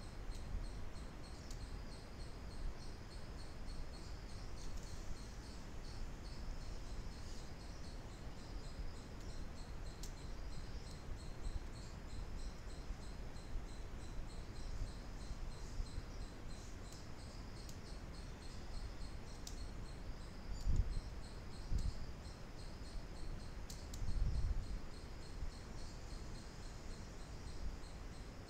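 Steady low background hum and hiss with a faint, high, rapidly pulsing chirr running through it. Two brief dull low thumps come in the last third.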